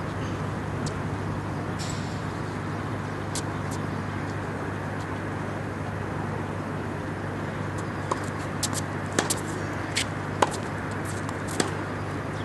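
Steady outdoor traffic rumble with no speech. From about two-thirds of the way in come scattered sharp knocks, tennis balls bouncing on a hard court and being struck.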